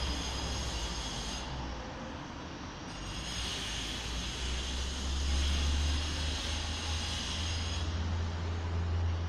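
Wind buffeting the microphone: a steady low rumble that grows stronger about halfway through and again near the end, over a faint outdoor hiss.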